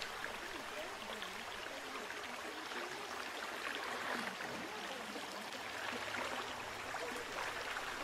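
Steady rush of a stream's flowing water.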